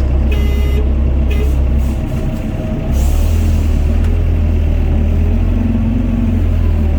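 Diesel engine of a Doosan DX55 mini excavator running with a steady low drone, easing off about two seconds in and picking up strongly again about a second later as it works under load. Two short high squeals sound in the first second and a half.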